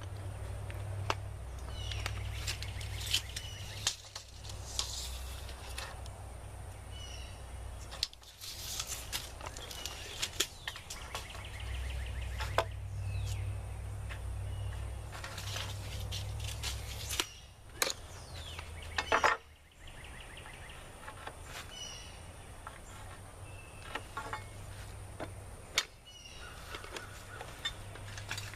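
Scattered knocks and clicks of wall-framing work on lumber, with birds chirping and a low steady rumble that drops away a little past halfway.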